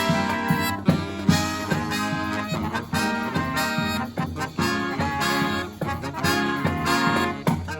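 Brass marching band playing a swinging Christmas arrangement, with sustained brass chords over a steady drum beat.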